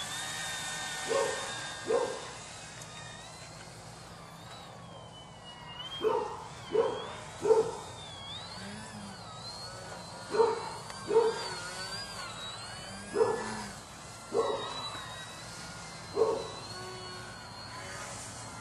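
High-pitched whine of a radio-controlled YAK 55M foam 3D aerobatic plane's electric motor and propeller, steady at first and then rising and falling with the throttle as it flies. Over it a dog barks about ten times in short, loud barks.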